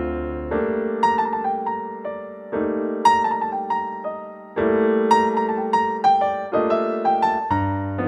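Background piano music: held chords that change about every two seconds, with a melody of single notes struck over them.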